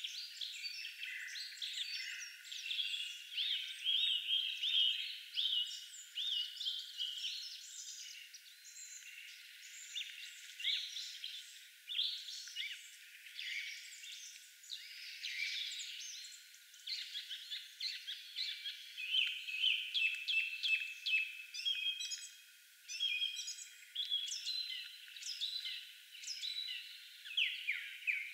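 A chorus of small songbirds chirping and twittering, many short, high calls overlapping throughout with no low sounds underneath.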